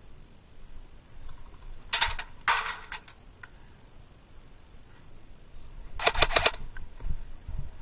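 Airsoft gun firing short rapid bursts of sharp clicking shots: a couple of quick bursts about two seconds in and a tighter burst of six or seven shots about six seconds in.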